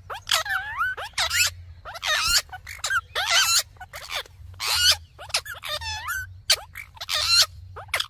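Rose-ringed (Indian ringneck) parakeets chattering: a quick run of a dozen or so short, shrill calls that slide up and down in pitch, over a faint low hum. The sound cuts off suddenly at the end.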